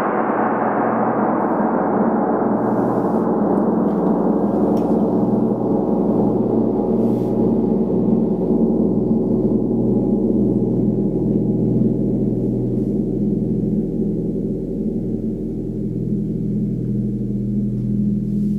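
Large gong played with a padded mallet, ringing in a dense, many-toned wash. Its high shimmer slowly dies away while the deep hum carries on.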